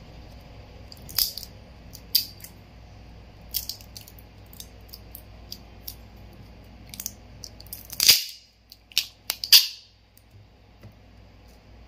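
Scattered small clicks and cracks of a phone battery being pried and peeled out of its adhesive in the phone's frame, with a cluster of louder sharp cracks about eight to ten seconds in as it comes free.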